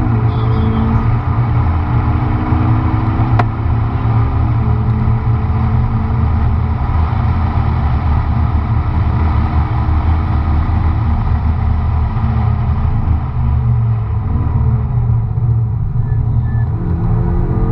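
McLaren MP4-12C's twin-turbo V8 heard from inside the cabin at track speed, rising in pitch as it pulls through the revs. It drops back at a gear change about four and a half seconds in, then climbs again, over a heavy steady rumble of road and wind noise.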